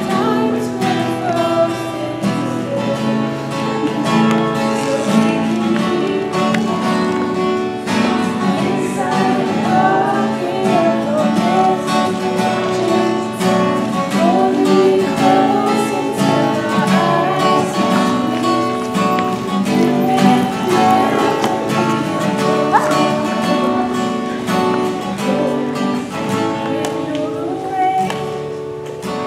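Acoustic guitar played live, with a woman singing along.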